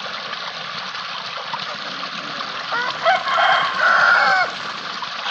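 A loud pitched call from domestic fowl starting a little under three seconds in and lasting about a second and a half, in several linked notes ending on a falling one, over a steady rush of running water.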